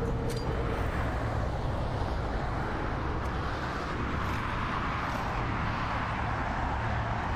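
Steady rush of highway traffic going by: an even noise with a low rumble under it.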